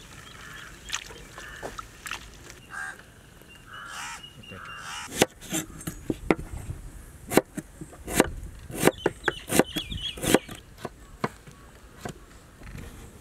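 Kitchen knife chopping an onion on a wooden cutting board: a run of sharp, irregular knocks from about five seconds in until near the end. Bird calls come through during the first few seconds.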